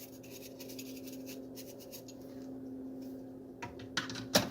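A small cleaning brush scrubbing inside the detached steam wand of an espresso machine, in quick scratchy strokes, over a steady low hum. A few sharp knocks come near the end.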